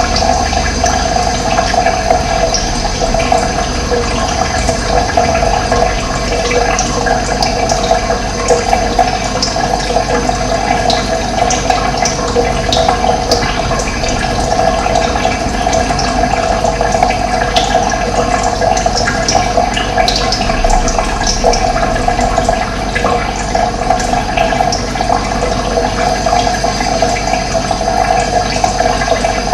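Steady rush of running water, even and unbroken, with brief high bird chirps scattered over it.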